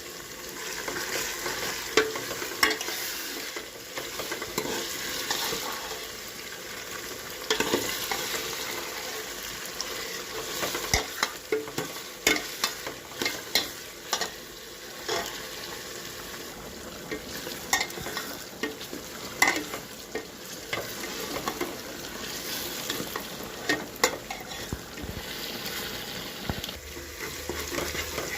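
Food sizzling in a hot pan while being stirred, with the spoon scraping and knocking against the pan at irregular intervals.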